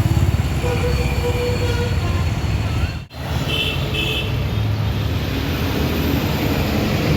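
Street traffic noise with a steady low engine and road rumble. It drops out for an instant about three seconds in, and two short beeps follow.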